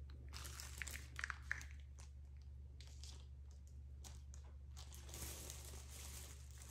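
Faint crinkling and rustling of a small clear plastic bag being handled, with a few light crackles about a second in.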